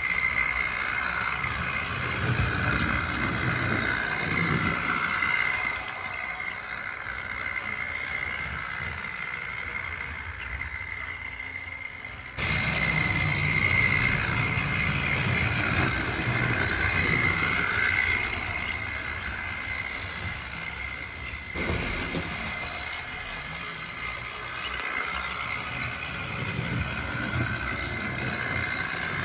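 Tri-ang OO gauge Bulleid 'Spam Can' Pacific model locomotive running around the layout: its electric motor gives a steady high whine over the rumble of wheels on the track. The replacement motor is a little noisy but running well.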